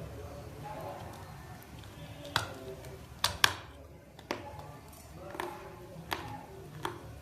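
Raw multani mitti (fuller's earth clay) chunks being bitten and chewed close to the microphone: sharp crunches roughly once a second, the loudest two coming close together near the middle.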